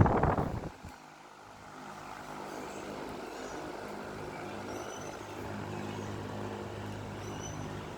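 Loren Sid wall fan running: a loud rush of air in the first moment cuts off sharply, then the electric motor's steady hum and the blades' whir build up slightly and hold level.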